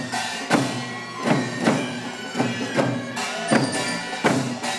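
Korean traditional folk music for a mask dance: drums struck roughly twice a second under a steady, reedy melody.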